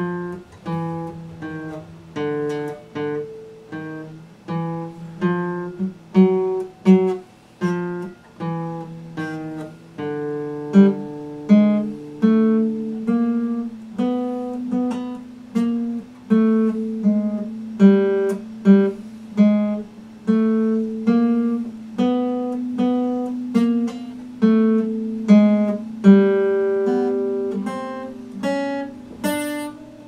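Epiphone acoustic guitar played at a slow, even pace: single notes and chords picked about twice a second over a bass note that changes every few seconds, each note ringing on.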